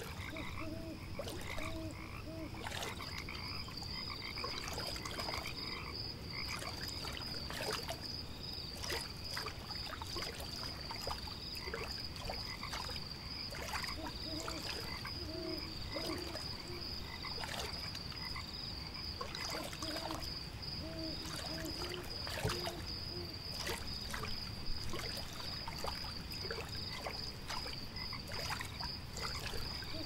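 Frogs croaking in short runs of repeated calls over a low, even background hiss. A steady high-pitched trill joins about three seconds in and holds, with scattered sharp clicks throughout.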